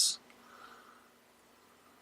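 Near silence: faint room tone, just after the hissy end of a spoken word.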